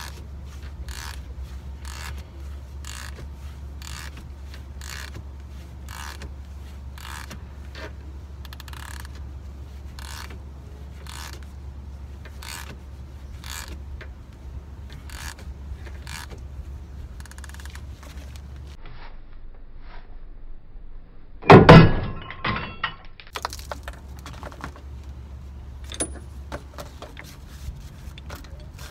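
A ratchet wrench turning the screw of a ball-joint separator on a Chrysler 300 SRT8's front knuckle, clicking about twice a second over a steady low hum. Then comes one loud metallic bang with a ring, as the lower ball joint's tapered stud pops free of the knuckle, followed by a few lighter clanks.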